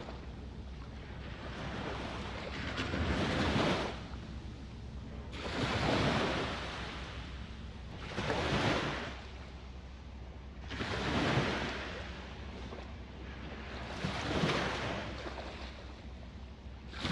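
Small waves washing onto the shore, about five of them, each swelling and fading every two to three seconds, over a steady low wind rumble on the microphone.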